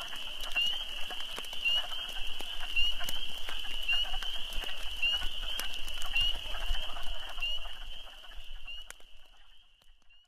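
A dense chorus of spring peepers: many short, high, upward-slurred peeps over a steady high ringing, with scattered light ticks. It fades out near the end.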